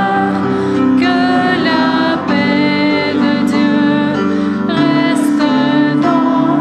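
A hymn sung by a woman's voice over sustained instrumental chords, without a break.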